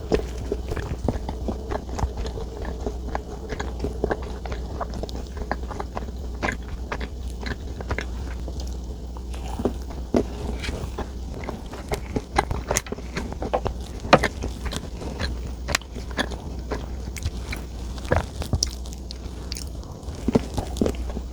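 Close-miked chewing and biting of chocolate desserts: irregular wet mouth clicks and smacks with occasional soft crunches, over a steady low hum.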